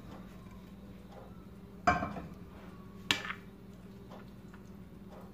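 Metal spoon clanking against a frying pan and plate while stir-fried bean sprouts are scraped out and served. Two sharp clanks, the louder about two seconds in and another a second later, over a steady low hum and faint small taps.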